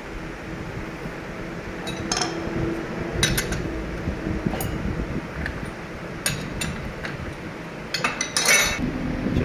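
Metal parts clinking and rattling against each other in short bursts, a quick cluster near the end being the loudest. Underneath is a steady machine hum.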